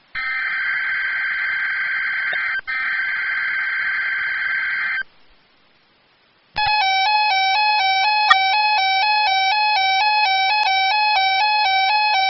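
Emergency Alert System SAME data header: a harsh, steady digital buzzing with a brief break about two and a half seconds in, stopping about five seconds in. After a moment of quiet, the EAS alert tone starts: two tones alternating rapidly in a warble.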